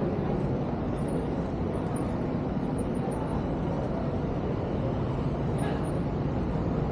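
Steady city traffic noise heard from a bicycle moving through the streets, an even rumble with no single event standing out.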